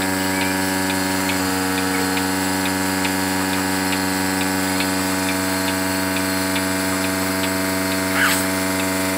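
Milking machine running steadily: the vacuum pump's even hum with a regular ticking from the pulsator as the teat cups are fitted to the buffalo. A short burst of noise comes near the end.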